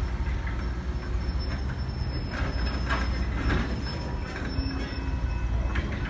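Open-top hopper cars of a work train rolling slowly past: a steady low rumble with a thin, continuous wheel squeal and a few scattered clanks from the cars.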